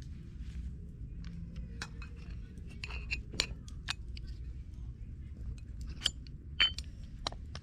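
Scattered light clinks and taps of metal and glass coffee-making gear being handled, the loudest a ringing clink near the end, over a steady low rumble.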